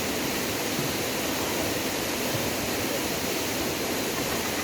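Waterfall: the steady rush of falling water, loud and unbroken.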